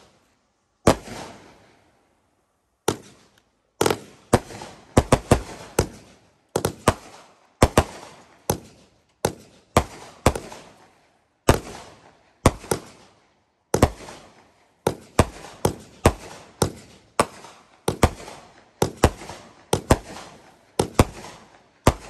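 Consumer firework cakes firing: an uneven string of sharp bangs, about one or two a second, from shots lifting and bursting in the air, each trailing off in an echo.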